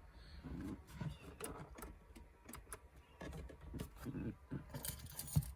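Scattered light clicks, small knocks and a brief scraping rustle near the end as car dash trim and parts are handled and worked loose inside a car's cabin, over a low steady rumble.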